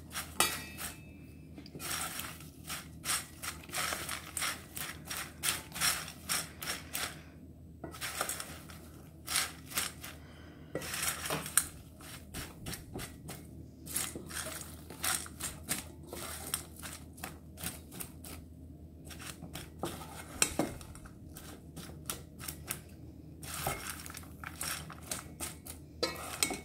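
Metal spoon stirring popcorn in a stainless steel pan, scraping and clinking against the pan in irregular bursts with short pauses, as toffee sauce is mixed through the popcorn to coat it.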